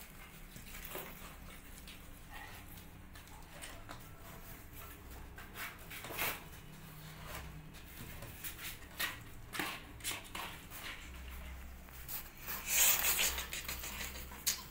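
Kittens' claws scratching and scrabbling on cardboard as they climb the box, a scatter of short scrapes and ticks, with a louder rustling scrape near the end.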